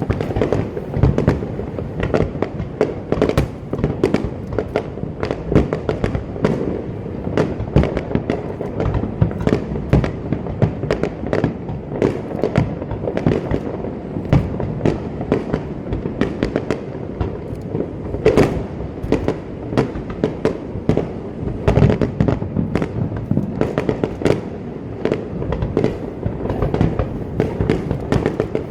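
Fireworks going off in a dense, continuous barrage: rapid overlapping bangs and crackles with no pause, the heavier booms standing out every second or two.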